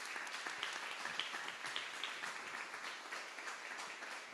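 Audience applauding at the end of a talk: many hands clapping at once, easing off slightly near the end.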